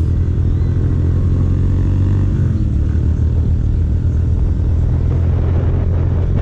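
Motorcycle engine running steadily while the bike is ridden along a street, its pitch shifting slightly about two and a half seconds in.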